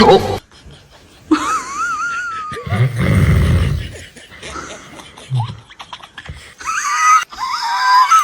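A man's exaggerated snoring: rasping low snores alternate with high, wavering whistling wheezes, twice near the start and again near the end. The snoring carries on even with the anti-snoring gadget in place.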